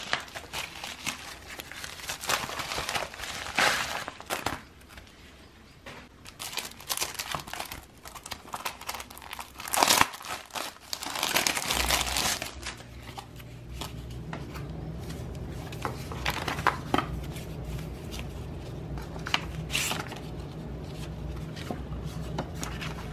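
A package being torn open and its wrapping crumpled by hand, in dense crackly rustles that thin out to a few sharp crinkles later. About halfway through, a steady low hum starts underneath.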